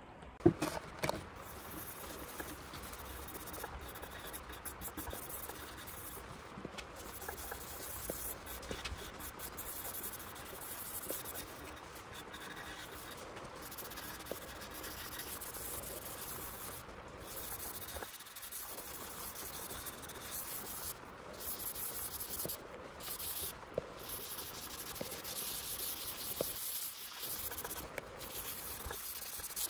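A cloth rubbing back and forth over a wooden tabletop, wiping on golden oak oil stain: a faint, steady rubbing with a few brief breaks.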